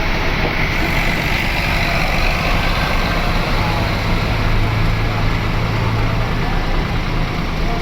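Heavy road vehicle's engine running close by over dense traffic noise, with a low engine hum that grows stronger for a couple of seconds in the middle.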